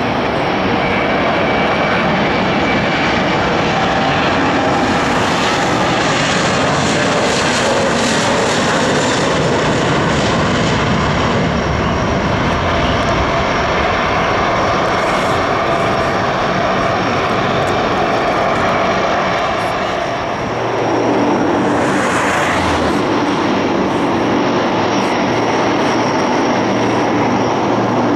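Aircraft engines running loud and steady at close range. About two-thirds of the way through the sound briefly dips, then comes back with a steady low hum of even tones.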